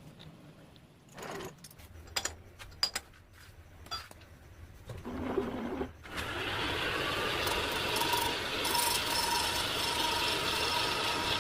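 A few metal clinks and knocks of tools being handled, then about six seconds in a metal lathe starts and runs steadily with a whirring hum.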